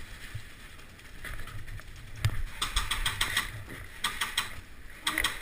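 Airsoft guns firing in two short bursts of rapid clicks, a little past the middle and about four seconds in.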